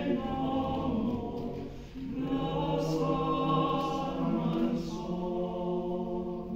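Choir singing sustained chords, with a brief break about two seconds in before the next phrase begins.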